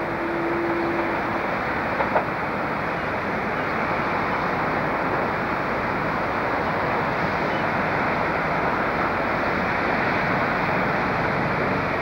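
Steady rumbling noise of a train running on the tracks, with a brief steady tone in the first second and a couple of light clicks about two seconds in.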